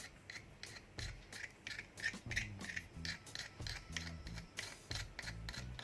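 A knife blade scraping the tip of a soldering iron in quick repeated strokes, about three a second, scraping off the blackened oxide until bare copper shows.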